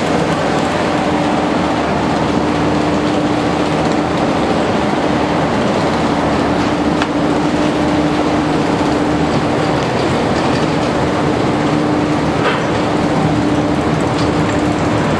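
Chairlift station machinery running: a steady mechanical drone with a constant hum, with a couple of short sharp clicks partway through.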